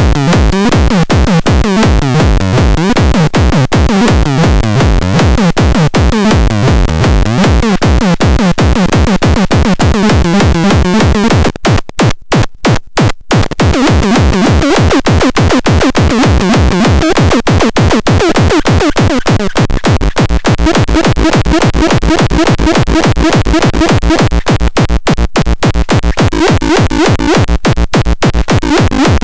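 Minimal techno track: a fast, steady drum-machine pulse under synthesizer parts. About twelve seconds in, the music stutters, cutting in and out several times for a couple of seconds, then resumes at full level.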